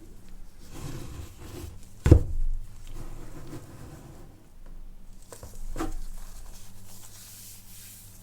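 Hands handling an iPhone 15 Pro Max's box and paper packaging: rubbing and tearing of paper, with a sharp knock about two seconds in and a softer click near six seconds.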